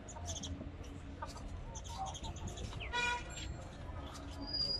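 Chickens clucking, with one short, louder squawk about three seconds in.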